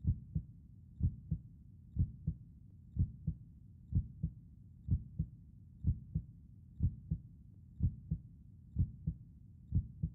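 Human heartbeat, slow and steady: each beat a low double 'lub-dub', about one a second, as if heard with an ear on the chest.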